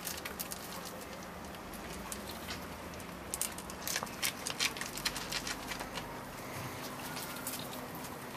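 Puppies' paws and claws pattering and clicking on brick paving as they run about, with a flurry of quick sharp clicks in the middle.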